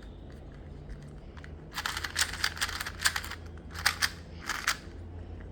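Plastic speed cube being twisted by hand: a quick run of clacking layer turns starting about a second and a half in, about a dozen clacks over three seconds, with a low steady hum underneath.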